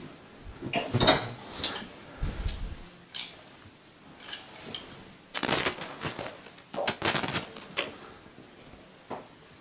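Metal parts of a Milton Roy G Series diaphragm dosing pump and hand tools clinking and knocking, a series of short sharp clicks with a dull thump a couple of seconds in, as the pump head is taken apart after the diaphragm comes out.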